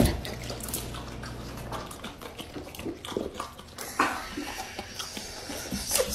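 A dog licking at a lemon slice and smacking its lips, making irregular wet clicks over a soft hiss.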